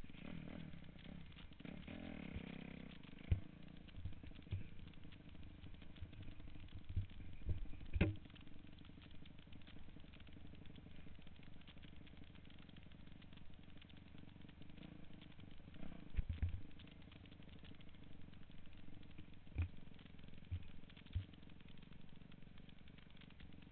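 Dirt bike engine running as the bike rides along a rough, rocky dirt trail, heard from a camera mounted on the bike, with several sharp knocks from jolts over the bumps.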